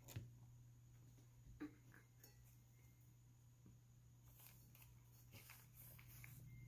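Near silence: room tone with a low hum, broken by a couple of faint clicks and light scrapes of a metal spoon spreading peanut butter on bread.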